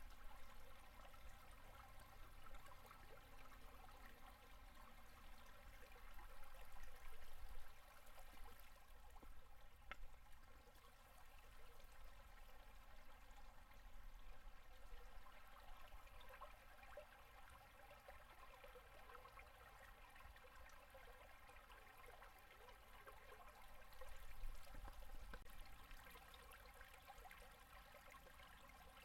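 Faint running water of a low-flow winter river gurgling over and under its ice, swelling a little a couple of times.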